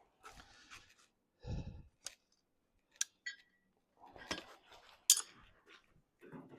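Scattered clinks and knocks of metal tools and parts being handled at a workbench, with a dull thump about one and a half seconds in and two sharp clicks later on.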